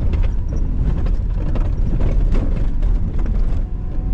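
Vehicle driving over a rough dirt track, heard from inside the cabin: a steady low engine and road rumble with frequent knocks and rattles from the body.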